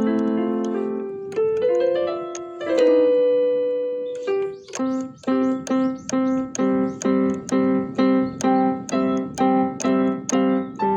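PCM synthesizer keyboard playing chords: held, changing chords for about the first four seconds, then a short chord struck over and over, about two and a half times a second, each strike starting with a sharp click.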